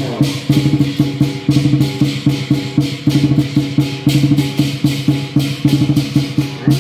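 Chinese lion dance percussion: a drum beaten in a fast, steady rhythm, several strikes a second, with clashing cymbals accompanying a lion dance on high poles.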